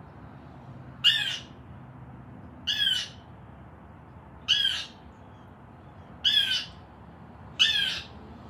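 African grey parrot calling: five short calls of the same shape, one about every one and a half seconds.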